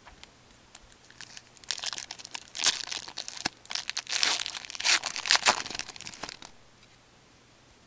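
Plastic trading-card pack wrapper from a box of 2008 Fleer Ultra hockey cards crinkling and tearing as it is handled. It makes a dense run of crackles lasting about five seconds and stops about a second before the end.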